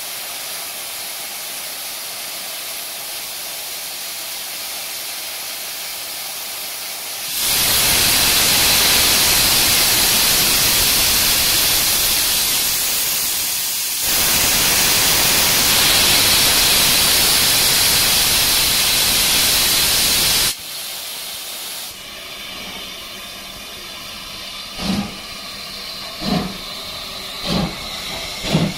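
LMS Jubilee class 4-6-0 steam locomotive 45596 Bahamas starting away with its train. First comes a steady hiss of steam. About seven seconds in, a loud rush of steam from the open cylinder drain cocks begins and cuts off suddenly some thirteen seconds later. Near the end come the first exhaust beats, slow and quickening as the engine gets under way.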